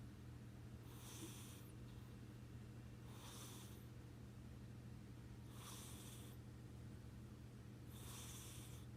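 Domestic cat snoring faintly in deep sleep: four soft, airy breaths about two and a half seconds apart.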